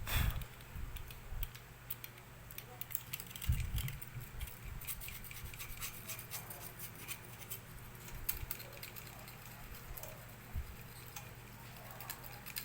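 Small clicks, ticks and light scrapes of a hand tool working on a laminator's parts, with a knock at the start and another about three and a half seconds in, over a low steady hum.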